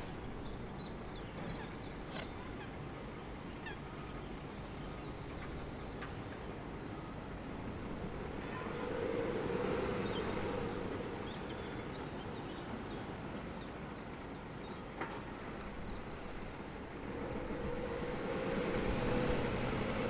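Outdoor lakeside ambience: a steady low background hum with small birds chirping now and then, swelling louder twice, about halfway through and again near the end.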